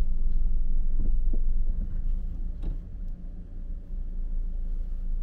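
Low, steady rumble of a car on the road, heard from inside the cabin, a little louder for the first second or so, with a few faint ticks.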